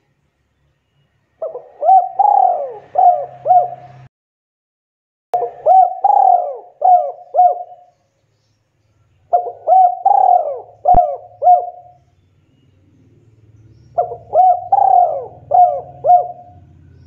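Spotted dove (tekukur) cooing its territorial call: four phrases of about five short coo notes each, with pauses between them. A single sharp click comes about eleven seconds in, and a faint low rumble underlies the last few seconds.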